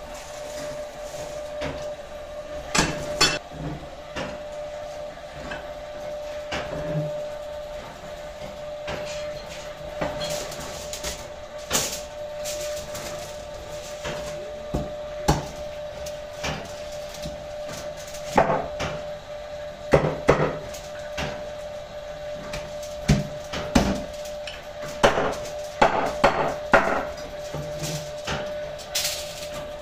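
Irregular knocks and chops of a knife and hands on a wooden cutting board as a whole roasted lamb is carved and pulled apart. A steady faint hum runs underneath.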